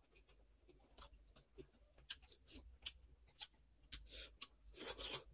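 Soft close-up chewing of an egg momo dumpling, with many small wet mouth clicks and smacks. Near the end comes a crisp bite into a slice of raw cucumber.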